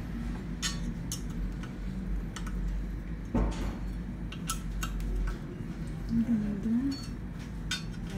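Scattered light metallic clicks and clinks of a hex key working the chainring bolts as a chainring is fitted onto a bicycle crank spider. A low background hum stops about five seconds in.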